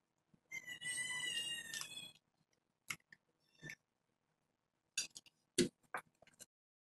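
Ghee spooned into a pan of hot semolina kesari gives a soft sizzle with a thin high tone for about a second and a half. Then a steel spoon and a wooden spatula make scattered light clicks against the stainless steel pan as the ghee is stirred in.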